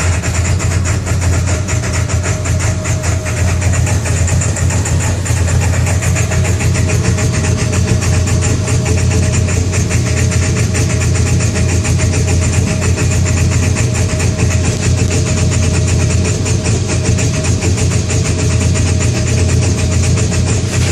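Engine idling steadily with a low hum and a regular pulsing beat. This is a rough idle.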